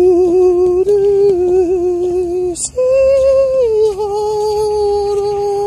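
A woman's voice holding long wordless notes: a steady note, a slight step up, a short break, then a higher note that slides down and is held steadily for the last two seconds.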